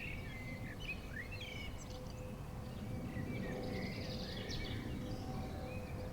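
Songbirds chirping and twittering in quick, varied calls over a steady low background rumble.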